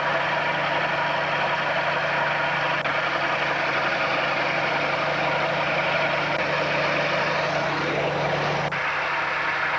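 Bulldozer's diesel engine running steadily under load as it pushes deep snow. A low hum underneath stops with a faint click near the end.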